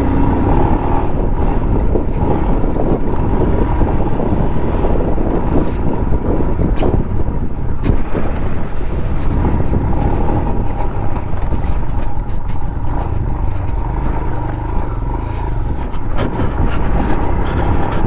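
Royal Enfield Himalayan's single-cylinder engine running steadily as the motorcycle rides over a rocky riverbed, heard through heavy wind noise on the microphone.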